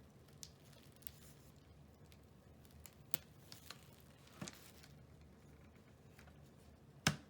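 Faint handling noises: scattered light clicks and taps, with one louder, sharp knock near the end.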